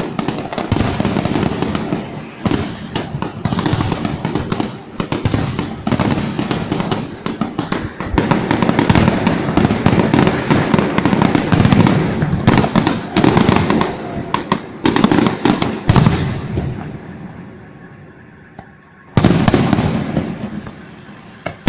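Fireworks display: dense, rapid bangs and crackling from bursting shells, dying away for a few seconds about three-quarters of the way through, then a loud volley of bursts starting abruptly near the end.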